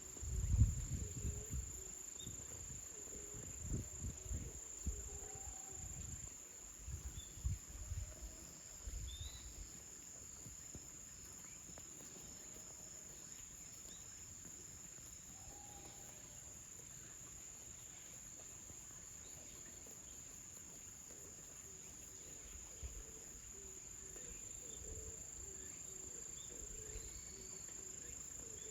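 Crickets trilling in one steady, unbroken high tone, with a few low thuds and rumbles during the first ten seconds.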